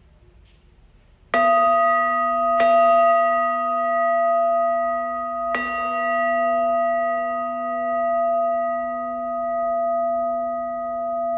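Buddhist bowl bell struck three times to open a chant. The first two strokes come about a second apart and the third about three seconds later. Each stroke rings on in one long, slowly pulsing tone that barely fades.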